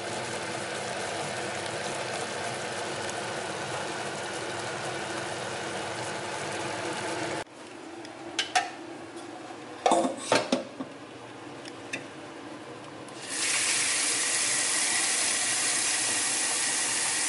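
A steady hiss over the pot of beef and bones cooking on the hob for the first several seconds. After a cut come a few light knocks of a plastic measuring jug being handled. Then, for the last four seconds, a kitchen tap runs hard into the plastic measuring jug, louder than anything before.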